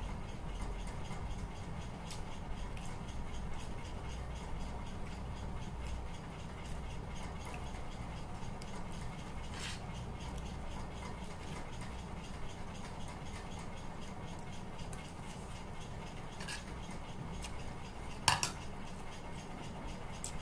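Steel spoon scraping and clinking against a bowl while eating, a few light clinks spread apart and the loudest one near the end, over a low steady hum.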